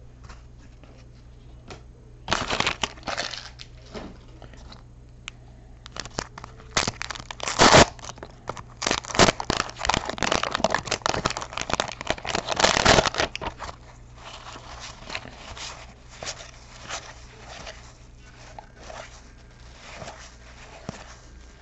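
Wrapper of a 1991 Donruss baseball card pack crinkling and tearing as it is worked open by hand: irregular crackling, a short flurry early, a dense run in the middle and lighter crinkles after.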